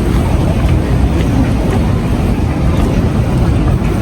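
Steady low road rumble of a moving vehicle, heard from inside.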